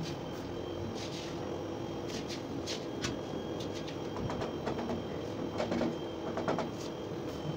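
Scattered scrapes and taps of a trowel and a spirit level working a sand-cement mortar bed for floor tiles, with a cluster of taps a little over five seconds in, over a steady background rumble.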